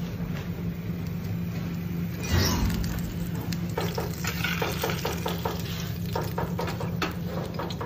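Metal spoon and fork clicking and scraping against a small metal serving pan as a baked fish is lifted out of it, with a louder scrape-like burst about two and a half seconds in and a run of quick clicks in the second half, over a steady low hum.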